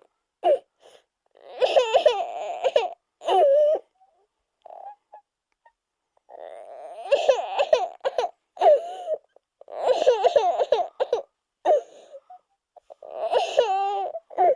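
A baby character's crying vocalizations, played as a string of separate sound-effect clips: wavering, pitched wails and sobbing bursts, about eight of them, separated by short silences.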